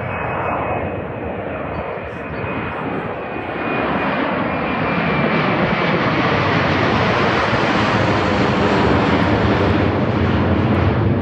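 Airbus A321 jet airliner departing, its engine roar swelling about four seconds in and then holding loud and steady.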